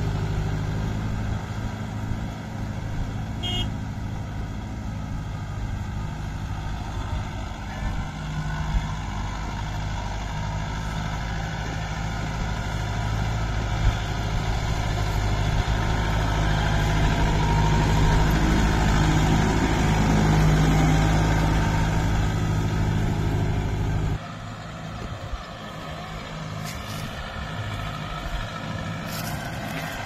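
Kubota MU5002 4WD tractor's diesel engine running steadily under load while pulling a cultivator through dry soil. It grows louder as the tractor passes close, then drops suddenly to a fainter, thinner sound near the end.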